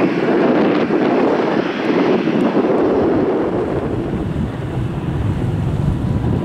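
Boeing 737-800 jet engines (CFM56-7B) running at taxi power, a steady loud rush of jet noise. About four seconds in the sound changes to a lower, duller rumble with wind buffeting the microphone.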